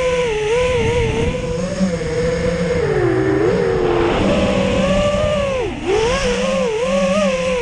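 FPV racing quadcopter's brushless motors (BR2205 2300KV) whining, the pitch constantly rising and falling with throttle. The pitch dips sharply a little before six seconds in and comes straight back up. A low rumble of wind on the onboard microphone runs underneath.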